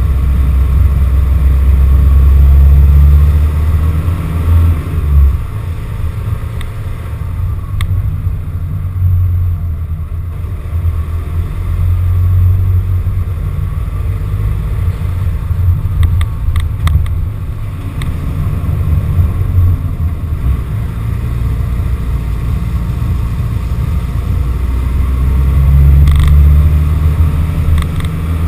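Van engine running and the van rumbling as it drives along a rough clay lane, heard through a GoPro mounted on the van's body. It is mostly a deep, loud rumble that swells and eases, with a few short knocks just past halfway.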